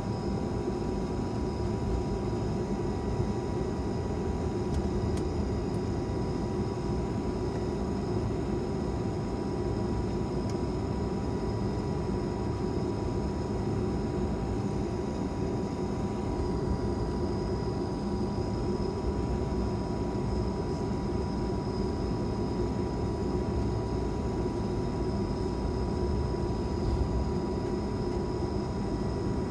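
Cabin noise of an Airbus A220-300 taxiing: a steady low rumble from the engines at idle, with a few faint steady high tones above it.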